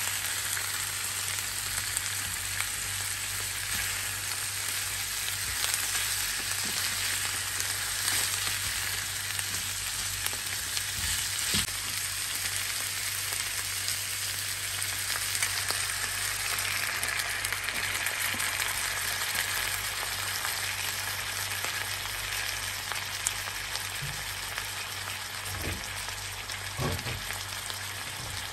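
Chicken pieces sizzling steadily as they fry in a nonstick pan, with a few light spatula knocks. About halfway through, vinegar is poured over the chicken and the sizzle turns brighter for several seconds.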